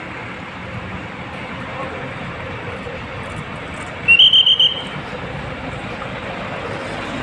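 Steady noise of bus and traffic engines running, with a brief, loud, shrill warbling tone about four seconds in, lasting about half a second.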